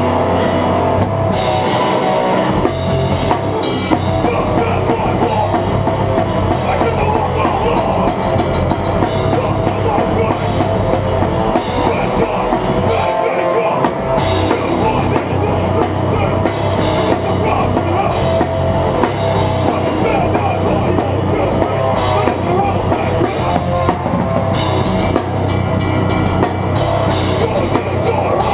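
Hardcore band playing live and loud: a pounding drum kit with cymbals under dense, distorted rock guitars.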